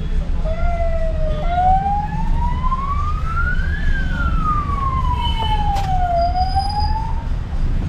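A siren wailing: starting about half a second in, its pitch climbs slowly to a peak near the middle, falls back over about two seconds, and turns up again near the end. A steady low rumble runs beneath it.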